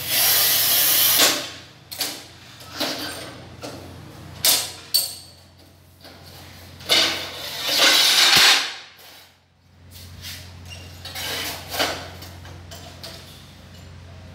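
Manual rail tile cutter in use on ceramic tile: the scoring wheel scraping across the tile face for about a second right at the start and again about 7 s in, with short knocks and clatter of tile pieces being handled in between.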